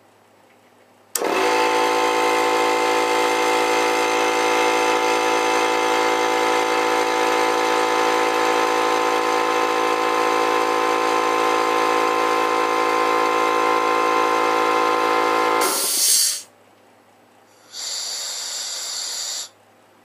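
Central Pneumatic 21-gallon air compressor starting about a second in and running steadily for some fifteen seconds, then shutting off with a short burst of hiss from the unloader valve venting. Near the end, a second, weaker hiss of air being let out lasts about two seconds.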